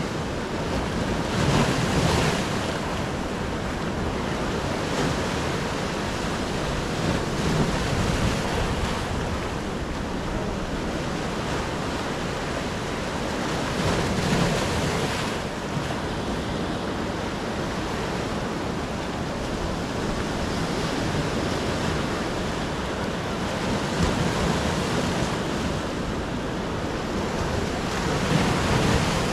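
Sea waves breaking on the shore, a steady surf roar that swells louder every several seconds as each wave breaks, with wind buffeting the microphone.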